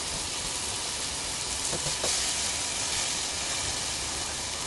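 Marinated pork steaks sizzling steadily on a hot electric grill plate, with a couple of faint taps about two seconds in.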